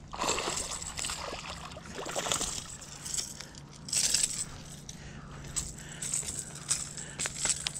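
A small hooked largemouth bass splashing at the surface in short bursts as it is reeled in to the bank, followed by a string of light clicks and rattles near the end as it is landed.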